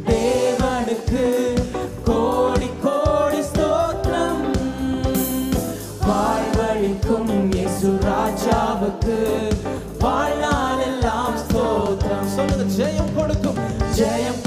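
Christian worship song sung live into microphones by a man and a woman, with an instrumental backing of steady low sustained tones beneath the voices.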